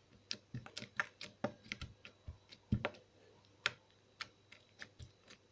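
Homemade glue-and-glycerin slime being squeezed and poked by hand, giving off irregular small clicks and pops, several a second, as it is tested for how well it sounds.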